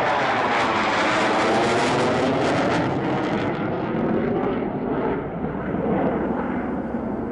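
Jet noise from an EA-18G Growler's twin turbofan engines as it passes overhead and banks away. The high-pitched hiss fades about three seconds in, leaving a lower rumble.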